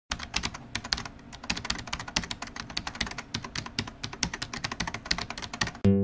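A fast, irregular run of sharp clicks, about ten a second, like keys being typed on a keyboard. Strummed guitar music starts just before the end.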